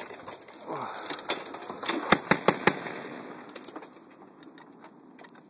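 Mk19 40 mm automatic grenade launcher firing a short burst: a quick run of sharp shots, about five a second, around two seconds in.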